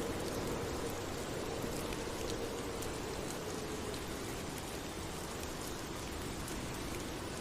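Steady rain falling: an even, continuous hiss with scattered individual drop ticks.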